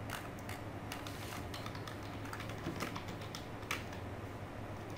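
Computer keyboard keys clicking now and then, irregularly spaced, over a steady low hum.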